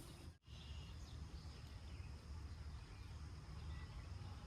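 Outdoor ambience: a steady low rumble of wind or water noise under a continuous thin high insect drone, with a few faint bird chirps. The sound drops out sharply for an instant about half a second in.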